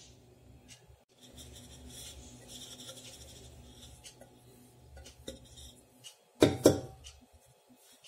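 Flour sliding and rubbing around inside a steel vessel as it is tilted and shaken to remove the excess, then two loud knocks in quick succession about two-thirds of the way through as the vessel is knocked.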